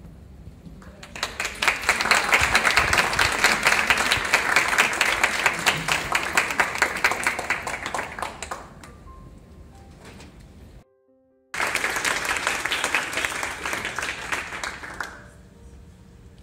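Audience applauding in two bouts: the clapping starts about a second in and dies away after about eight seconds, then after a brief silent break it resumes suddenly and fades out near the end.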